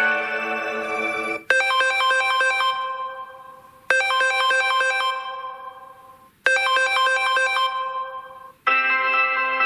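Samsung Galaxy S21 Ultra ringtones: one ringtone fades out, then a short bright phrase of quick keyboard-like notes rings three times, each dying away before the next, and a different ringtone starts near the end.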